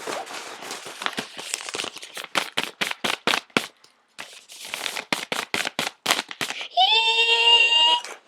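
Homemade Foley sounds made with household items: a fast, irregular run of sharp clicks and crackles, then near the end a loud, high, slightly rising squeaky tone that breaks off and starts again.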